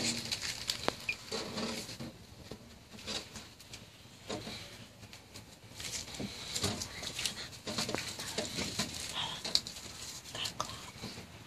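Gloved hand working thickened epoxy along a plywood seam: soft, scattered squelching, rustling and small clicks, busier in the second half.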